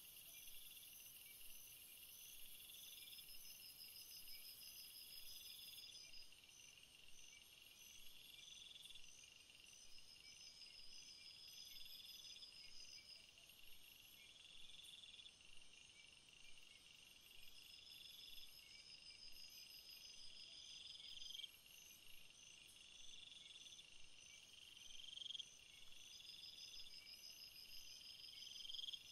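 Faint night insect chorus of trilling calls. One call repeats about every two seconds, a longer trill comes every few seconds, and a high pulsing chirp goes on steadily behind them.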